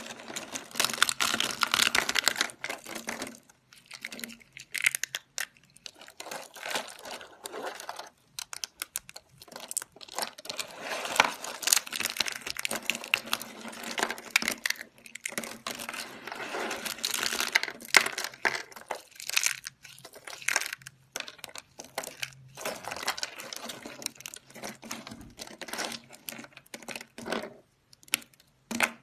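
Thin, brittle slices of soap crunched and crumbled between the fingers: dense, dry crackling in bursts, with short pauses between squeezes.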